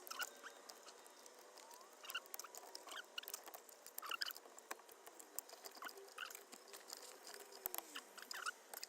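Faint, scattered light clicks and ticks from the new steering-column clock spring's plastic housing as it is handled and seated.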